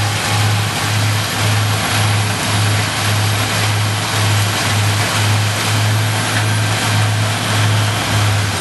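Peterson 4310 drum chipper running under load, its engine and cutting drum going steadily while chipping whole hardwood trees for biomass chips, with a deep, even pulse about two and a half times a second.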